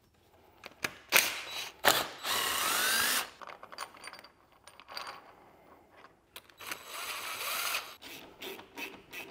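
Ratchet wrench run down on the Honda CX500's cylinder head bolts in three spells: a short one about a second in, a steady one of about a second starting around two seconds in, and another near the end.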